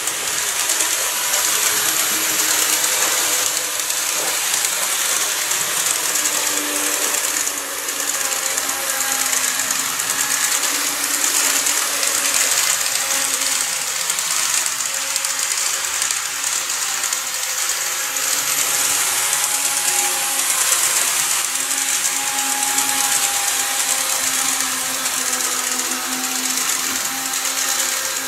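KATO N-gauge model trains running on plastic viaduct track: a steady mechanical whir of the small motors and wheels on the rails, with a high hiss and a faint whine that wavers in pitch.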